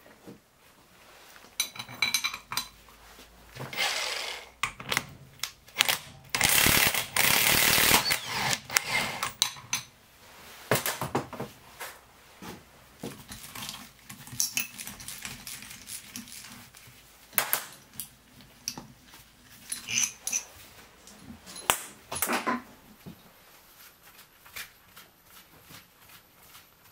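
A wrench turning the centre bolt of a flywheel puller on a Yamaha XT600 single-cylinder engine to draw the magneto flywheel off the crankshaft: scattered metallic clicks and clinks, with a sustained scraping noise lasting about a second and a half some seven seconds in. Further sharp metal clinks follow as the loosened flywheel is handled and lifted off.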